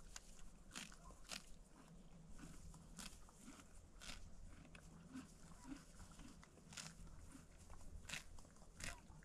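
Icelandic horse grazing close by, tearing off short grass with its teeth: faint, crisp rips at irregular intervals, roughly one every second or two.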